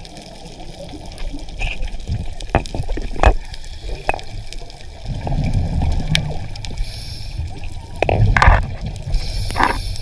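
Underwater recording on a scuba dive: gurgling and bubbling of a diver's exhaled air, with scattered sharp clicks and knocks. There are louder bursts of bubbling near the end.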